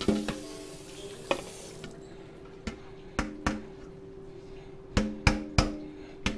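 Hot cooking oil sizzling in a frying pan, which stops abruptly about two seconds in, followed by about seven sharp metallic clinks of a utensil knocking against the pan, each ringing briefly.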